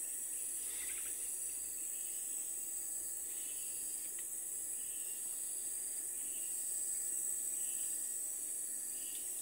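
Steady, high-pitched drone of an insect chorus in thick vegetation, with a few faint short chirps over it.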